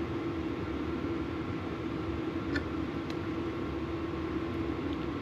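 Steady mechanical hum throughout, with two faint light clicks about halfway through, typical of metal parts being handled.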